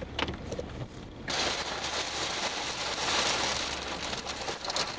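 Heavy rain hiss with scattered pattering clicks, coming in suddenly and at full strength about a second in.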